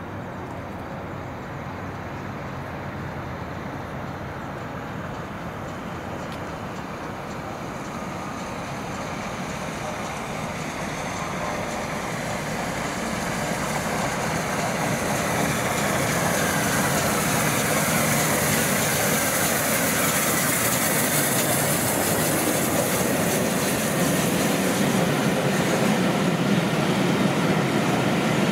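GWR Castle class 4-6-0 steam locomotive Clun Castle approaching with its train of coaches and running past close by. The sound grows steadily louder through the first half, and a rushing hiss rises as the engine and carriages go past.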